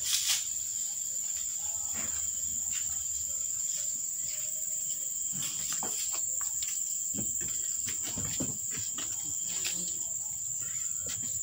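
Insects singing in one steady, high-pitched drone, with scattered soft clicks and rustles over it.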